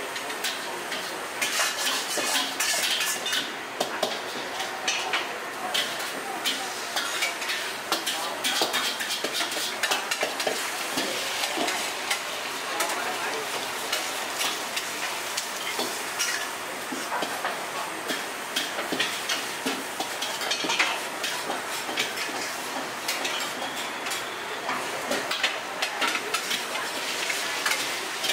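Egg and noodles for pad thai frying in a wok over a gas burner: a steady sizzle, with frequent scrapes and clinks of a metal spatula and ladle against the wok.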